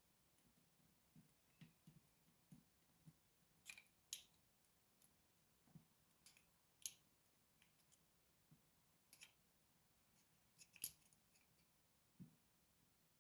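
Faint, irregular small metallic clicks and taps from a Sargent lock cylinder being taken apart, as its pins, springs and parts are handled with tools. The sharpest click comes near the end.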